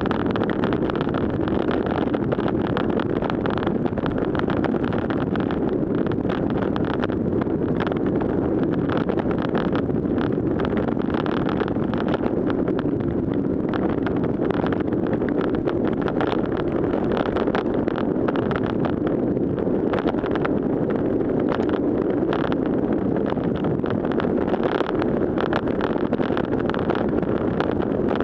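Steady wind noise on the microphone of a fast-moving road bicycle, mixed with the hiss and spray of its tyres running through shallow floodwater, with scattered small ticks.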